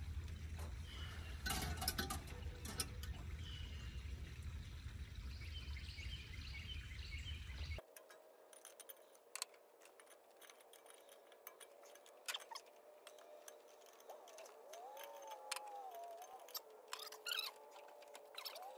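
Faint metallic clicks and clinks of a wrench working brake-line fittings as they are checked and tightened. A steady low hum under it stops abruptly about eight seconds in, and a few faint short squeaks come later.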